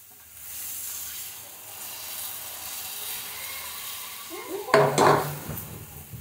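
Pitha batter sizzling on a hot earthenware griddle, a steady hiss. About five seconds in, a couple of loud knocks of utensils.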